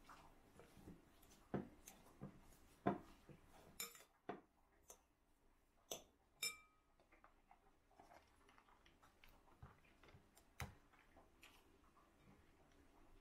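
Metal fork mashing soft white cheese in a glass bowl, with scattered faint clinks and taps of the fork against the glass. One tap about six and a half seconds in leaves the bowl ringing briefly.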